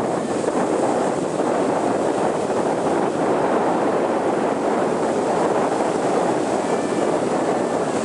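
Ocean surf breaking and washing up the beach, a steady rushing noise, with wind on the microphone.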